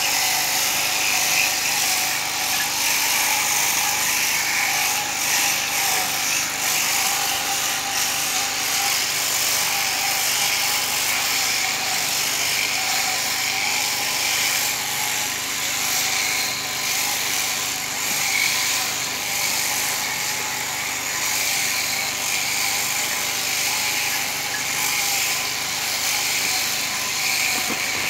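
Sheep-shearing machine running steadily, its handpiece cutting through a sheep's fleece.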